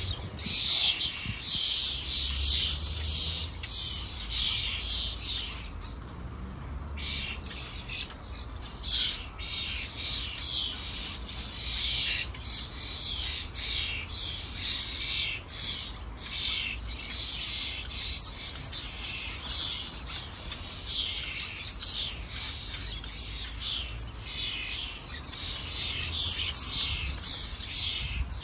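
A flock of house sparrows chirping continuously, many birds calling over one another, with a brief pause about six seconds in. Under the chirping is a low rumble of wind on the microphone, heaviest in the first few seconds.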